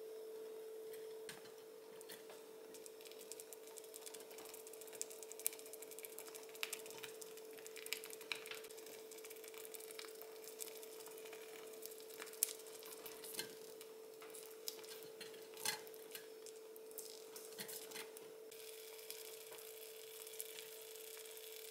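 Cream sauce cooking in a tiny saucepan, with small scattered pops and crackles and the light scrape of a tiny spatula stirring, over a faint steady hum.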